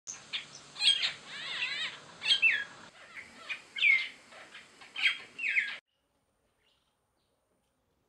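African glossy starling calling: a series of loud, sharp down-slurred whistles and chirps, with a quick chattering run about a second and a half in. The calls cut off suddenly about three quarters of the way through.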